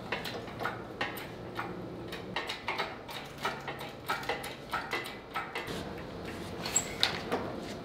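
Irregular clicks and light metal knocks, about three or four a second, as a four-rotor rotary engine is cranked up and out of the car on a shop engine crane and load leveler.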